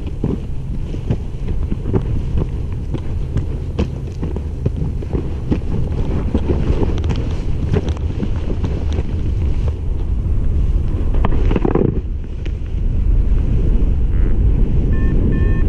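Wind buffeting the microphone as a paraglider launches and flies: a steady low rush with scattered rustles and clicks. A few short, high beeps start near the end.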